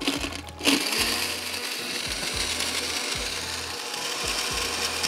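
Countertop blender switched on about half a second in and running steadily, blending a green lemon soda drink.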